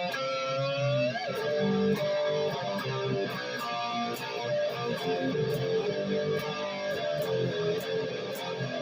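Dean Switchblade ML electric guitar being played, single notes and phrases, with a string bend rising in pitch in the first second.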